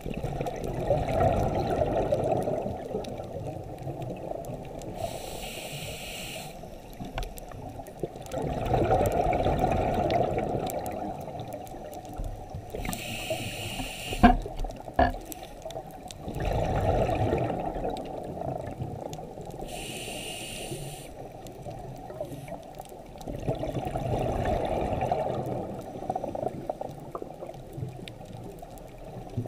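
Scuba regulator breathing heard underwater: four rushing bubble exhalations, each two to three seconds long, alternate with shorter hissing inhalations in a slow cycle of about seven seconds. Two sharp clicks come about halfway through.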